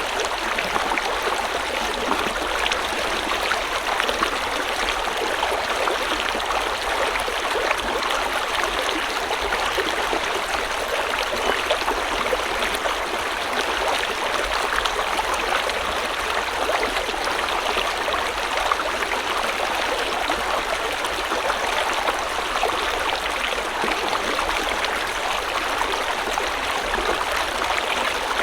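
River water flowing steadily over stones, a continuous rushing with fine splashing and gurgling.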